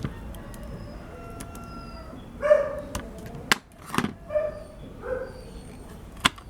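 A dog barks a few short times, about midway and twice more soon after, among sharp clicks and knocks.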